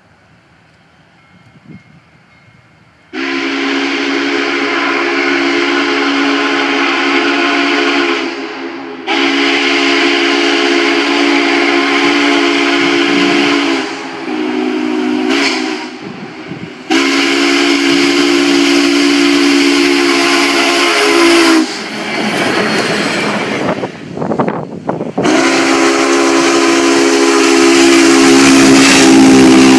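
Union Pacific 844's Hancock three-chime steam whistle, blown in the grade-crossing signal: long, long, short, long. Each blast is one steady chord. A rush of steam and running noise from the passing 4-8-4 locomotive fills the gap before a final long blast.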